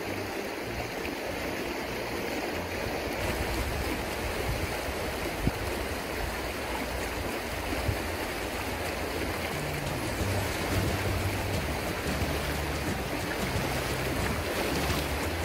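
Shallow, fast-flowing river riffle rushing steadily around the legs of a wading angler.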